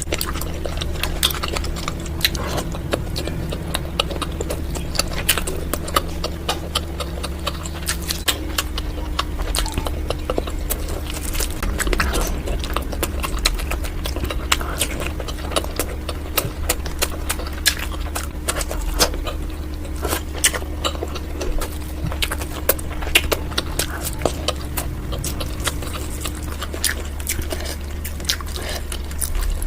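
Close-up chewing and wet mouth smacking of someone eating mutton liver, many irregular sharp clicks, over a steady low hum.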